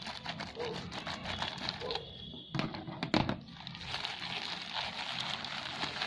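Plastic courier mailer bag being cut with scissors and then crinkling as hands tear and pull it open. Two sharp knocks come midway.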